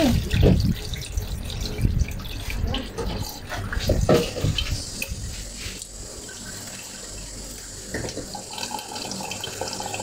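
Water running in a washing machine, a steady hiss like a tap, with a few light knocks of handling.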